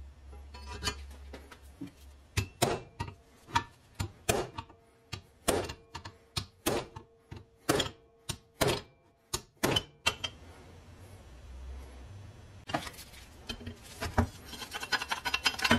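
Hammer striking a steel pin punch to drive out a drilled rivet: about twenty sharp metal blows, roughly two a second, with a faint ringing note under the middle ones. A faster flurry of lighter taps follows near the end.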